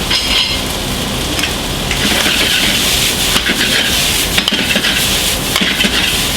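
Nasi goreng (fried rice with chicken, bacon and vegetables) sizzling in a hot fry pan as it is stirred, with a few short knocks and scrapes of the utensil against the pan.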